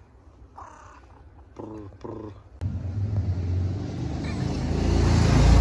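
A tabby street cat meows twice. About two and a half seconds in, a loud engine rumble from a motor vehicle starts and keeps growing louder, drowning out everything else.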